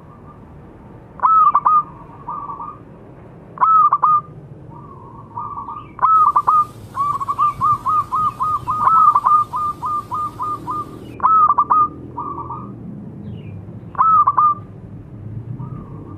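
Zebra dove (perkutut) cooing: a phrase of a few ringing notes, each trailing into a softer rolling trill, repeated every two to three seconds, with a long run of rapid notes in the middle.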